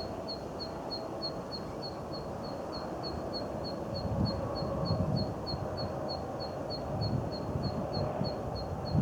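Zitting cisticola giving its repeated sharp "zit" notes, about three a second in a steady even series, a call like something struck with a drumstick.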